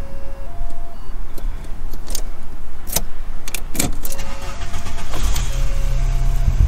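Volkswagen Mk3 engine idling, heard from inside the cabin, its low hum growing louder about five seconds in. A repeating two-note electronic beep sounds over it, with a few sharp clicks.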